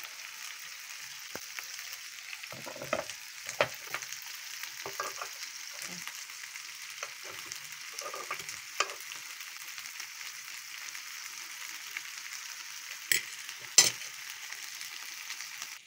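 Pollock pieces frying in oil in a grill pan, a steady sizzling hiss. A fork knocks against the pan now and then, with two sharp knocks near the end being the loudest.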